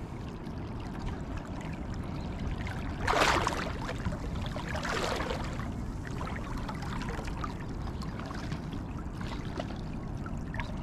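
Shallow estuary water sloshing and splashing around wading legs, over a steady low rumble. Two louder splashy rushes come about three and five seconds in.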